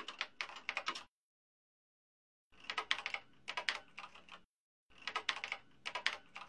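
Computer keyboard typing sound effect: fast key clicks in three runs, the first ending about a second in, the next two starting about two and a half and five seconds in, with dead silence between them.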